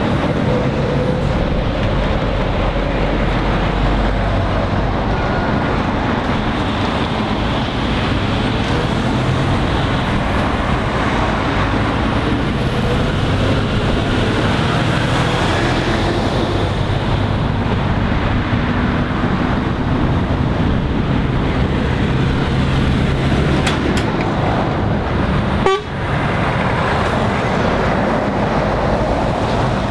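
Heavy diesel lorries passing close by one after another: engines running and tyres on the road. The passing vehicles include a hook-loader skip lorry, an eight-wheel concrete mixer and an articulated curtainsider. Near the end there is a short click and a brief dip in the sound.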